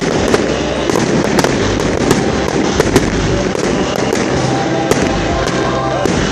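Fireworks display: continuous crackling and rumbling with sharp bangs about twice a second.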